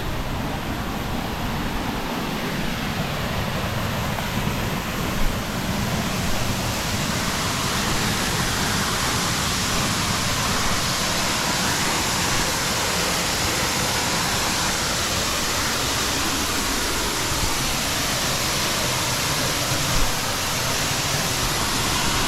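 Steady rushing of a mountain waterfall, growing a little louder and brighter about six seconds in, with two brief knocks.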